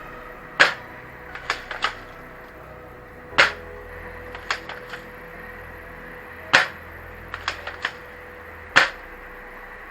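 Spring-powered airsoft pump shotgun firing four times, a few seconds apart. Between shots come two or three lighter clicks as the pump is worked to re-cock the spring.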